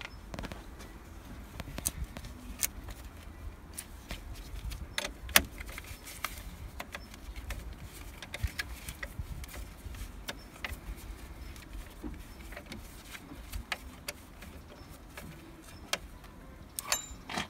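Scattered light clicks and metallic clinks of tools and battery hardware being handled while a 12 V car battery is fitted into its tray, irregular and spread out, with a few louder knocks near the end.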